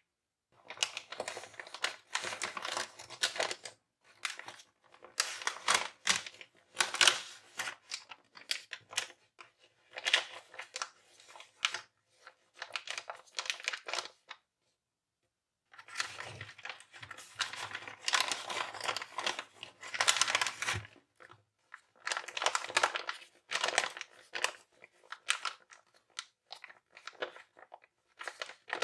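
A hand-made paper blind bag being handled and opened: stiff paper crinkling and rustling in irregular bursts, with a pause of about a second and a half near the middle.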